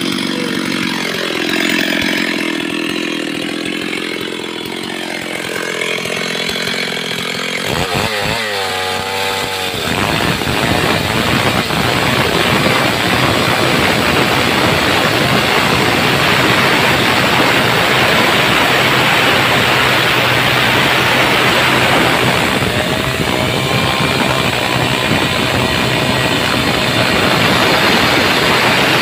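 Two-stroke Stihl chainsaw running with its pitch rising and falling, then cutting steadily from about ten seconds in as it rips lengthwise through a log.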